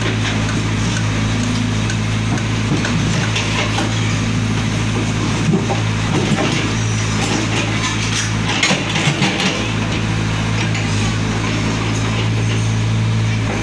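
Small tracked excavator's diesel engine running steadily as it digs, with the steel bucket scraping and clattering through broken concrete and rubble, heaviest around the middle.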